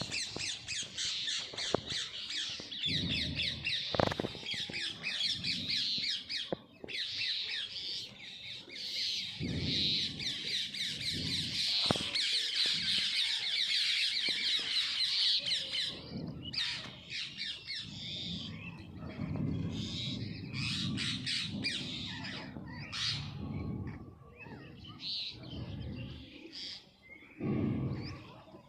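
Many birds chirping and squawking in a dense, rapid chorus that thins after about sixteen seconds to scattered separate calls. Bouts of low rumble sound underneath at several points.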